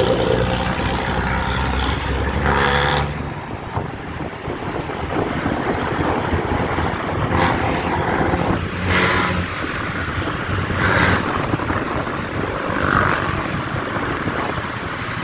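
Bus exhaust running with a loud, raspy drone for about three seconds, then dropping away. Road traffic noise follows, with several brief louder swells and the engine coming back more faintly.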